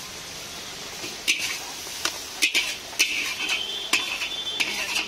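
Metal spatula clanking and scraping against a large iron wok as stir-fried noodles are scooped out onto a plate. The clanks are irregular, starting about a second in, with a thin ringing scrape in the middle.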